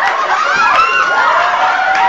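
A group of young people shrieking, laughing and shouting together, several high voices overlapping in rising and falling squeals.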